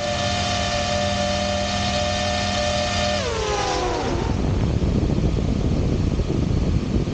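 DJI FPV drone's propellers and motors whining at a steady pitch as it hovers, picked up by a camera mounted on the drone itself. A little past three seconds in, the whine falls in pitch as the motors slow, and a steady rush of wind takes over.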